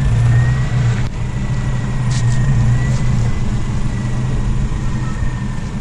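Nissan Navara ST ute's engine running at low revs as it crawls over deep ruts in low range, a steady drone with a thin high whine over it.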